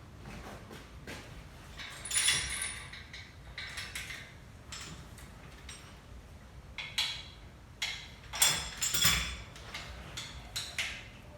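Irregular metal clinks and rattles, with louder clanking spells about two seconds in and again near the eight-second mark: a lifting chain and engine hoist being handled while rigging an engine block to be lifted.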